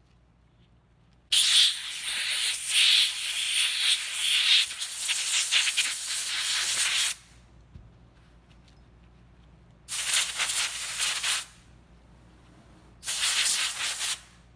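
Three bursts of hissing pressurised spray, a long one of about six seconds followed by two short ones, cleaning the parts of a reusable oil filter.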